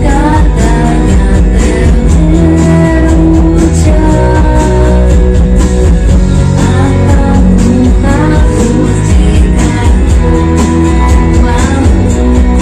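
Karaoke: a woman singing into a microphone over a loud amplified backing track with a strong bass line.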